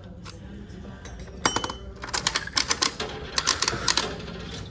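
Coin-operated prize vending machine being played: a short group of sharp clicks about a second and a half in, then a quick run of clicks, several a second, for about two seconds.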